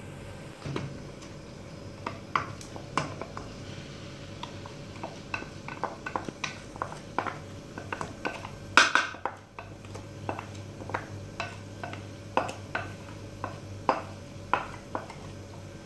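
Rice being tipped from a bowl into a stainless steel pot of boiling broth, with irregular sharp clinks and taps of the bowl and utensil against the pot, about one or two a second; the loudest clink comes about nine seconds in.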